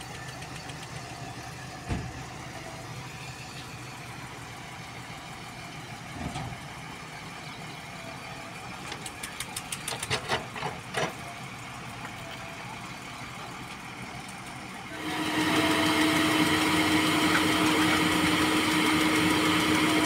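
Diesel engines of a JCB crawler excavator and a tipper truck running steadily, with a thump, then a quick run of knocks and clatters about halfway through. Near the end the engine sound turns suddenly much louder and closer, with a strong steady drone.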